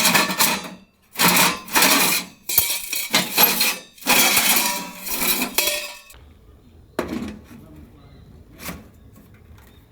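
Metal gear clattering and clinking as it is handled, in several dense bursts, then a couple of single clicks.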